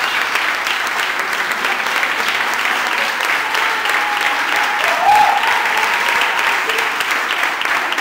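Audience applauding steadily, with a brief shout rising out of it about five seconds in.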